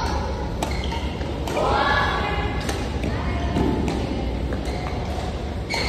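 Badminton rackets striking a shuttlecock back and forth in a rally: sharp clicks about once a second.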